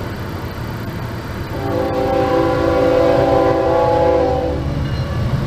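Locomotive air horn sounding one long chord of several notes, about three seconds long, over a low steady rumble.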